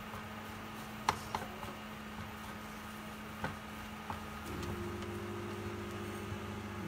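A few sharp clicks and light scrapes of a spatula against a steel frying pan as sesame seeds are stirred into caramel, over the steady hum of an induction cooktop; about four and a half seconds in a second, higher hum joins.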